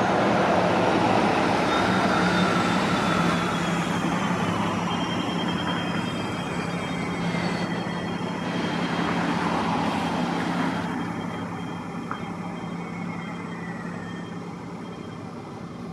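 2020 New Flyer XDE60 articulated hybrid bus, Cummins L9 diesel with BAE hybrid drive, driving away, its engine and tyre noise fading as it goes. A high whine slides down in pitch through the first half and again near the end.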